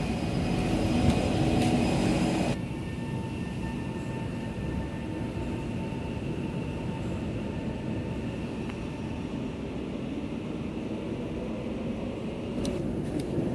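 Steady hum of a stationary SMRT C151 metro train and its underground platform, with no train movement. The sound drops sharply about two and a half seconds in, and a few faint clicks come near the end.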